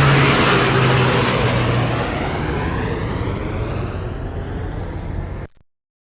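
Jet airplane passing with a loud, steady rush, its sound sweeping downward in pitch and fading a little as it goes, then cutting off abruptly about five and a half seconds in.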